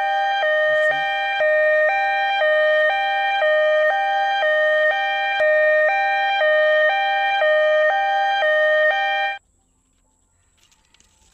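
Two-tone siren switching back and forth between a high and a low note about twice a second, then cutting off suddenly near the end.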